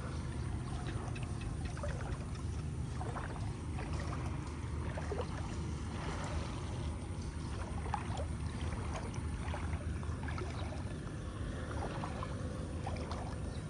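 Shallow muddy floodwater sloshing and splashing around the legs of someone wading through it, over a steady low rumble.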